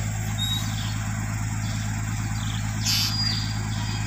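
A vehicle engine idling steadily, a continuous low hum. There are a few faint high chirps and a brief hiss about three seconds in.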